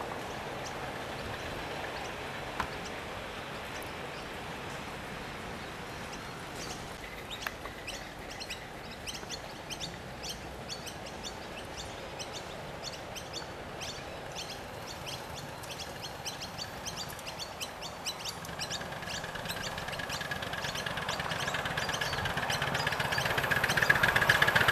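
Miniature live-steam model of NSWGR Standard Goods locomotive 5108 running, growing steadily louder as it approaches near the end, with many short chirps and ticks through the middle from birds.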